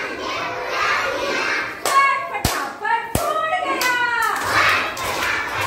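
A group of young children chanting an action rhyme together in sing-song voices, with a few sharp hand claps about halfway through.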